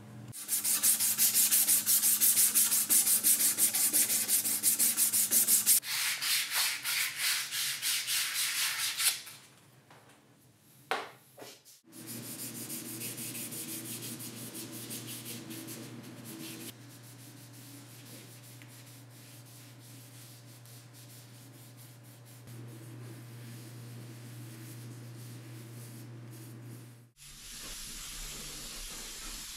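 Hard sanding, loud and scratchy, for about nine seconds. After a short pause, a steady low hum runs from about twelve seconds in, and a high hiss starts near the end.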